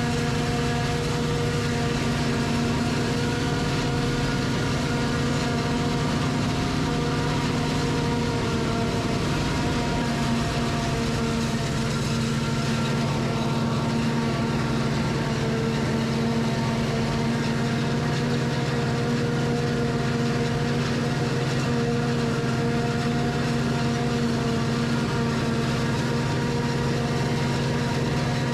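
Diesel farm machinery running steadily during corn chopping: a constant engine drone with steady droning tones, unchanging throughout.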